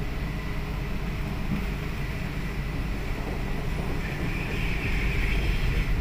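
Kolkata Metro train running between stations, heard from inside the carriage: a steady low rumble of wheels and traction on the track. About four seconds in, a higher hiss or whine grows louder.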